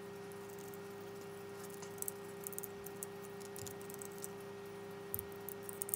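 Light clicks and scrapes of camera macro extension tubes being twisted and worked apart by hand at their stiff bayonet joint, clustered about two seconds in and again near the end, over a steady faint hum.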